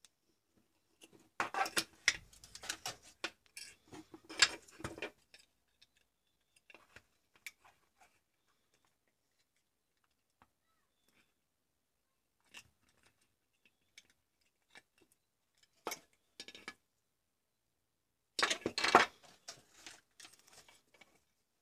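A small mains transformer being handled and worked into a plastic charger case: plastic and metal clicking and scraping in bursts, a busy cluster in the first few seconds and another near the end, with scattered single clicks between.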